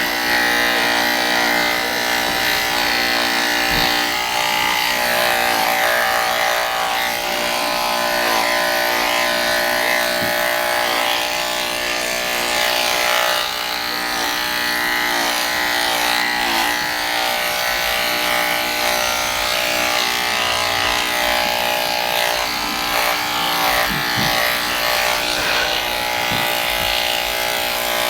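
Electric dog grooming clippers running with a steady hum, shaving a poodle's coat very short.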